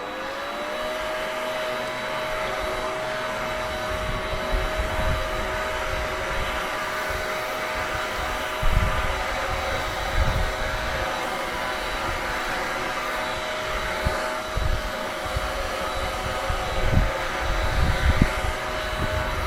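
Small engine revving up in the first second, then running steadily at high speed with a rushing hiss of air or water. A few dull low bumps come through about halfway and again near the end.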